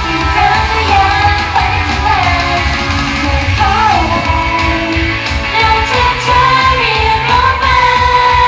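T-pop song with female singing over a steady beat.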